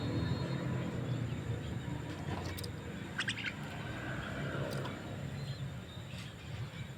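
A myna (jalak) giving a few short, sharp calls, the clearest a quick double call about three seconds in, then single ones near five and six seconds, over a steady low rumble.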